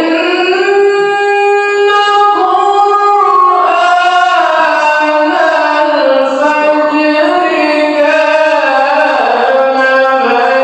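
A Quran reciter's voice in melodic recitation (tilawah), sustaining one long ornamented phrase in a single breath, its pitch winding and gradually falling.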